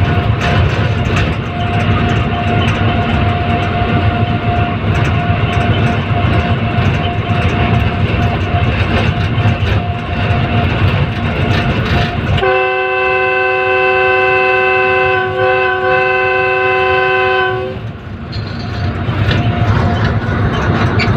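Diesel-electric locomotive, a GE U40, running at speed with a steady rumble from the engine and wheels. About twelve seconds in, its multi-chime horn sounds one long blast of about five seconds, then the running noise returns.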